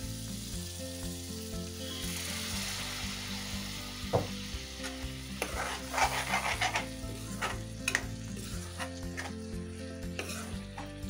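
Tomato masala sizzling in a karahi, with water from the rinsed mixer jar just added, as it is stirred with a metal spoon. From about four seconds in, the spoon scrapes and clinks against the pan.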